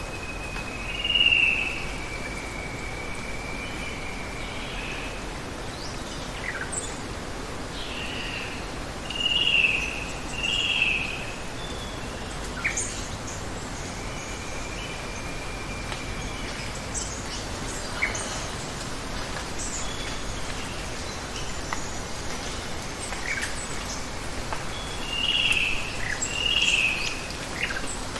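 Steady hiss of running water with birds calling over it: a few loud double calls, two long held whistles, and scattered short chirps.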